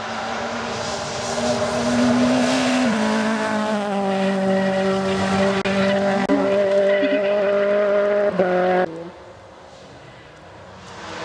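Rally car engine at high, steady revs with a rasping tone. The pitch steps down once about three seconds in, and the sound stops abruptly a little before nine seconds. After a quieter stretch, another engine rises near the end.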